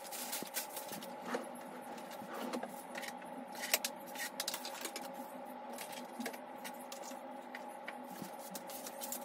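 Things being handled and set down during a desk clean-up: scattered light clicks, knocks and scrapes of small objects on a wooden desktop, over a steady low hum.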